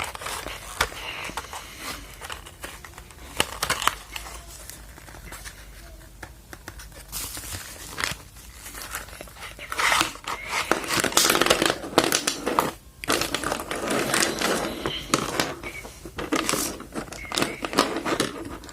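Packaging crinkling and rustling as a parcel is handled and opened, with sharp crackles and brief tearing sounds; the handling grows busier about halfway through.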